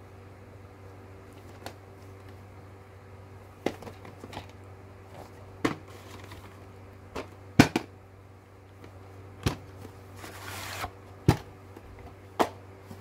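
A VHS cassette and its box being handled: a scattered series of sharp plastic clicks and taps, with a brief sliding scrape about ten seconds in, over a steady low hum.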